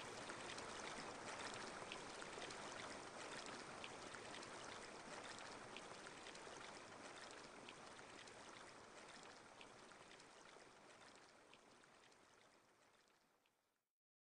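Near silence: a faint steady hiss with a few faint ticks, slowly fading out to complete silence near the end.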